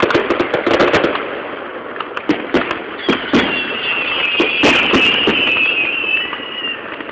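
Aerial fireworks bursting: many sharp bangs and crackles follow one another quickly. From about three seconds in, a high shrill sound holds for several seconds under the bangs.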